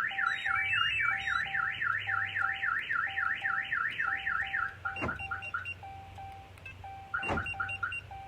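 Vehicle alarm siren wailing rapidly up and down, about four sweeps a second. It stops about five seconds in and gives way to a few short chirps. A double beep repeats steadily underneath.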